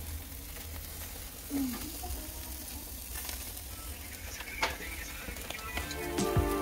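Pieces of meat sizzling in a wire grill basket over hot charcoal: a steady fatty hiss with a few small crackles. Music comes in near the end.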